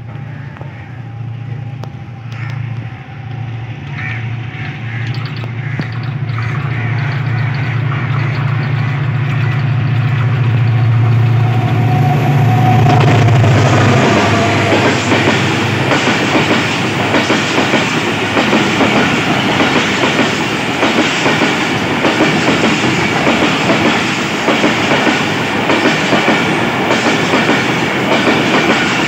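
A Pakistan Railways HGMU-30 diesel-electric locomotive approaches with a low engine drone that grows louder and passes close by about halfway through. Its passenger coaches then roll past with a steady rattling clatter of wheels over the rail joints.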